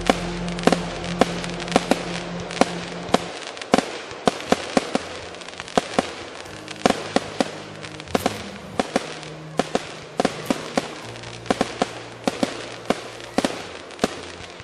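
Fireworks going off in a rapid, irregular string of sharp bangs and crackles, dozens of reports one after another, with music playing underneath.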